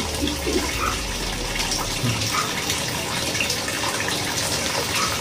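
Steady rush of running water, as from a garden rock-wall water feature pouring into its pond.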